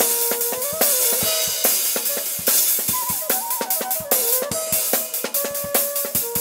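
Drum kit with cymbals and hi-hat keeping a fast, busy beat, while a flute plays a melody over it that holds notes and slides between them.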